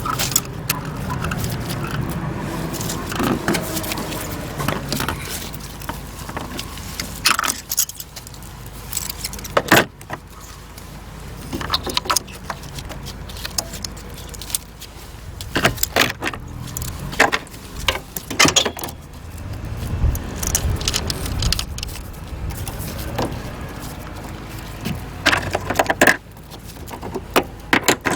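Metal hand tools and parts clinking and clicking irregularly, with scattered sharp knocks, as work goes on in a car's engine bay during a spark plug change.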